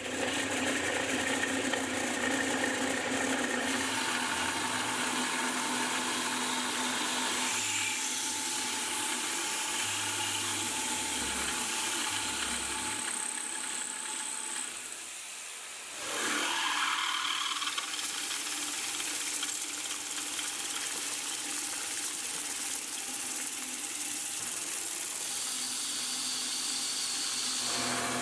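CNC milling machine, a Precision Matthews PM-25MV with its spindle driven by a DMM DYN4 AC servo motor, cutting aluminium with an end mill: a steady machining noise with a strong hiss and humming tones. It dips about halfway through, then a rising whine comes in as the spindle speeds up again.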